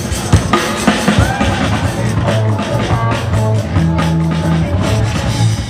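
Loud music for a breakdance battle: a steady drum beat over a held bassline, the bass notes heaviest in the middle stretch.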